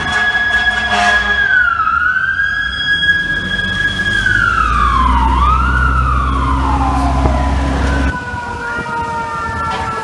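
Fire engine siren holding a steady high tone, dipping and climbing back twice, then winding down in a long falling glide, over a low engine rumble. About eight seconds in it cuts to a fainter, more distant siren.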